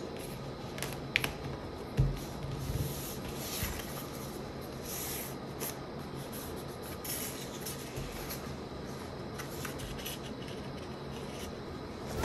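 A sheet of paper being folded and creased by hand into a paper airplane, rustling and rubbing against itself and the tabletop, with a few sharper crinkles about one and two seconds in.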